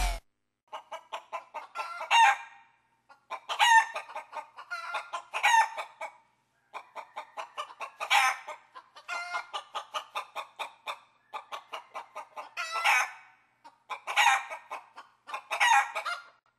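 Chicken clucking and cackling: runs of quick clucks, each ending in a louder, drawn-out squawk, about seven times over with short silent pauses between.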